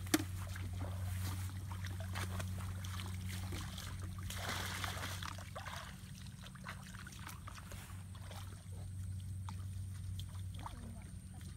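Water splashing and trickling in short irregular bursts, with a louder surge of splashing about four seconds in, over a steady low hum.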